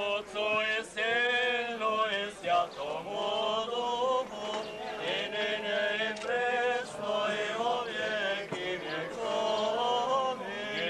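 Orthodox liturgical chant sung by men's voices: a slow melody of held notes that rise and fall, part of the blessing service over the festive bread and wine.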